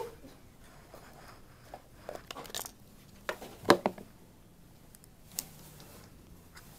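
Scattered small clicks and rustles of hands handling small objects and paper at a counter, the loudest a sharp clatter just over halfway through.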